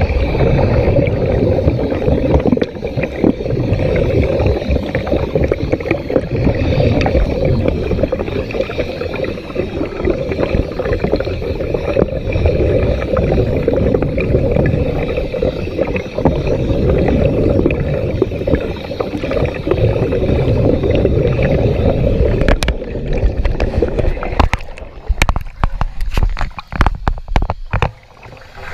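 Underwater rushing and gurgling of water around a submerged camera, a steady low rush that breaks up into sharp clicks and drop-outs near the end.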